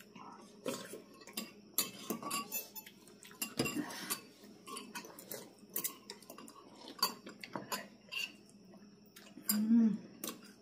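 Forks and spoons clinking and scraping against ceramic soup bowls in irregular taps, with noodles being slurped.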